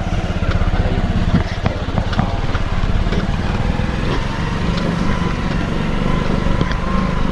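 Small motorcycle engine of a tricycle (motorcycle with sidecar) running steadily as it drives along, heard from inside the sidecar.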